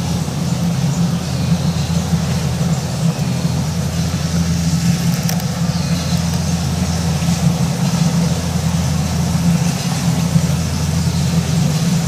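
Kubota DC70 combine harvester's diesel engine running steadily under load as the machine cuts rice: a constant low drone.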